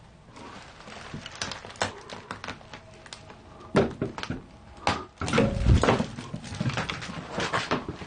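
Rustling, clattering and irregular knocks as objects and debris are pushed about and stepped on, with a few heavier thuds in the middle.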